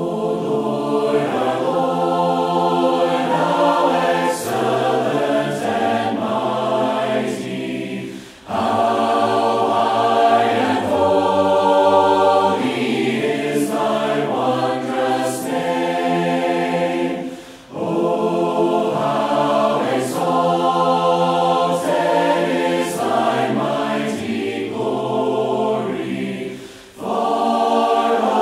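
Choir singing a hymn in harmony, in long phrases of about nine seconds, each followed by a brief breath pause.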